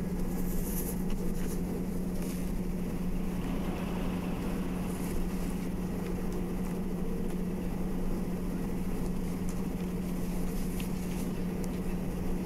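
Steady low background hum with a faint hiss.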